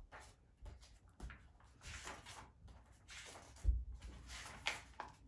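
A picture book being opened and its pages turned: several papery swishes, with a few soft thumps of the book being handled, the loudest thump about two-thirds of the way through.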